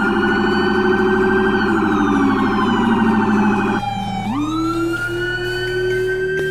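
Police car's electronic siren: a fast pulsing tone that switches about four seconds in to a rising wail, which then holds high.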